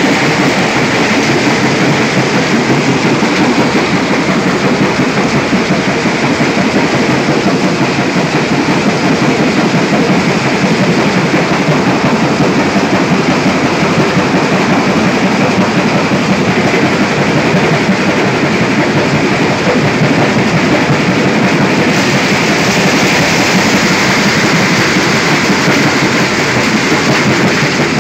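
Vibrating pan feeder running loaded with crushed stone: a loud, continuous rattle of rock shaking and sliding over the steel pan along with the machine's running noise, turning a little hissier about three-quarters of the way through.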